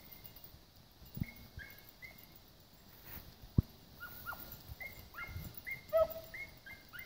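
Beagles baying as they run a rabbit's scent track: short yelps that drop in pitch, coming thicker from about four seconds in, with one lower, longer bay about six seconds in. Two sharp knocks come through louder than the hounds, about a second and three and a half seconds in.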